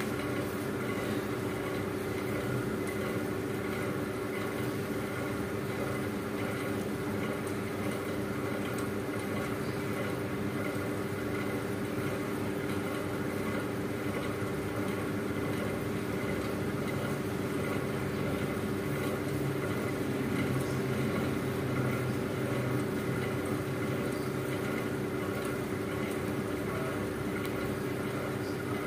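A steady machine hum with a few fixed tones over a background hiss, unchanging throughout.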